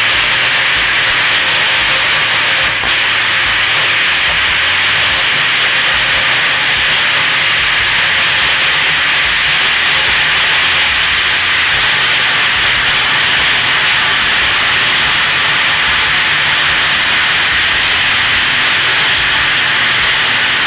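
Plasma cutter cutting through the steel water-heater tank: a loud, steady hiss of the arc and air that runs unbroken.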